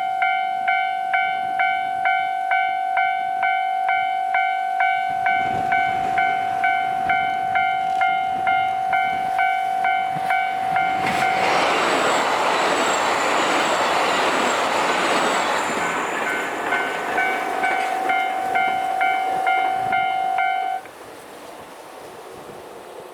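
Japanese level-crossing alarm ringing its electronic chime about twice a second while a KiHa 261 series diesel multiple-unit express approaches and runs through the crossing. The train's rumble builds from about five seconds in and drowns the chime for several seconds as it passes, then fades away. The alarm stops abruptly near the end.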